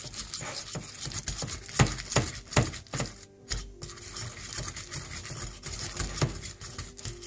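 Wire balloon whisk beating butter in a bowl: quick, irregular scraping and clicking of the tines against the bowl, with a short break about three and a half seconds in.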